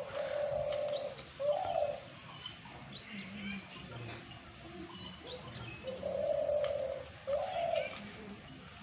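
A dove cooing twice, each call a long steady note followed by a shorter rising one, the second call about six seconds in. Small birds chirp faintly in between.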